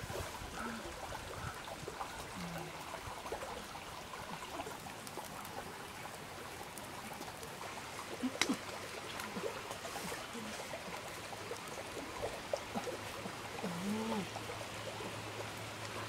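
Steady trickling water sound, with a single sharp click partway through and a few brief hummed voice sounds near the end.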